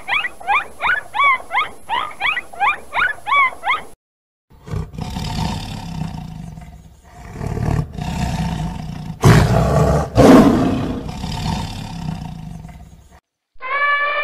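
A dolphin gives quick rising-and-falling whistles, about three a second. After a brief silence a lion roars in a run of swelling roars, loudest about two-thirds of the way through. Right at the end an elephant starts to trumpet.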